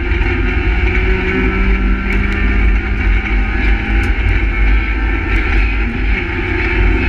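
Renault Twingo R1 rally car's four-cylinder engine running hard on a stage, heard from inside the stripped cabin, with heavy low rumble and road noise.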